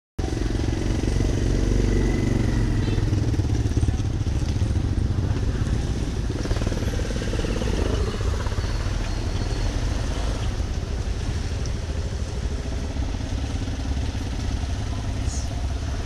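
Street traffic: motorcycle and other vehicle engines running close by over a steady low rumble, with a nearby engine loudest in the first several seconds.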